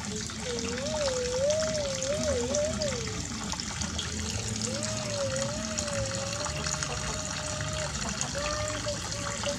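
Water running and trickling, as from a tap filling a small bath. A wavering hum-like tone rises and falls over it in three long phrases.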